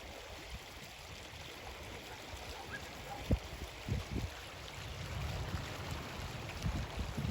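Water rushing steadily, as floodwater or a swollen stream runs through a washed-out road. A few short low thumps sound over it, about three seconds in, at four seconds and near the end.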